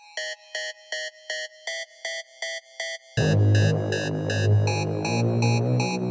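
Electronic synth loop from a phone beat-pad app: short synth notes repeating about three times a second in a shifting melody. About three seconds in, a deep hip-hop bass loop joins in and the music gets louder.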